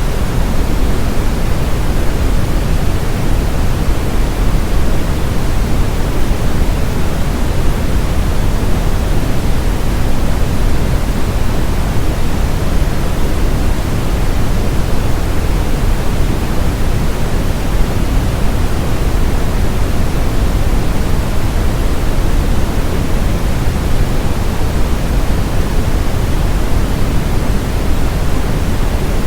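Steady brown noise: a constant, deep rushing hiss with most of its energy in the low end, unchanging throughout.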